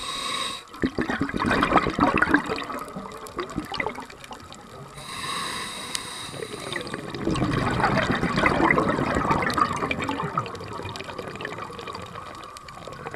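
Scuba diver breathing through a regulator underwater: twice a short hiss of inhalation, each followed by a few seconds of crackling, gurgling exhaled bubbles.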